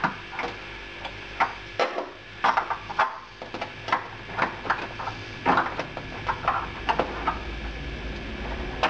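Irregular sharp metallic clinks and clicks as a spanner works the lock nut on a beer tap shank through a fridge door, tightening it down.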